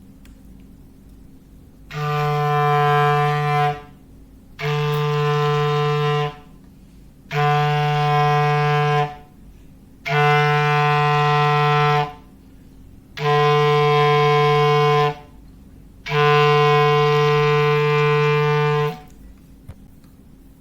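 A clarinet imitating a foghorn: the same low note held in six long blasts of about two seconds each, separated by short gaps. The last blast is held longer.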